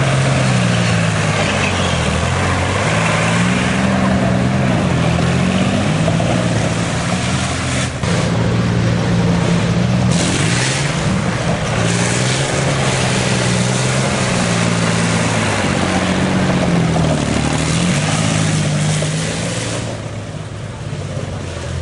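Tracked BVP (BMP) infantry fighting vehicle driving over rough dirt, its diesel engine revving up and down again and again with a steady rush of track and running-gear noise. The sound eases off a little near the end.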